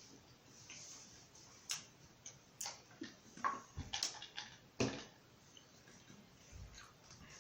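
Close-up eating sounds: irregular sharp clicks and taps of chewing and utensils on the food containers, several in quick succession through the middle.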